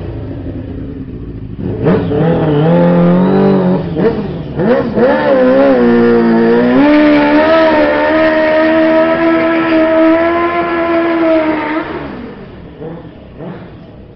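Suzuki GSX-R 600 sports bike's inline-four engine revved in short blips, then held at high revs for about six seconds in a burnout, with the hiss of the spinning rear tyre over it. The revs drop away about twelve seconds in.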